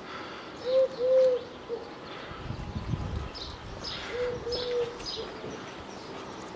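A dove cooing: a low three-note coo phrase, short, long, short, given twice, about a second in and again about four seconds in. Small birds chirp thinly in between.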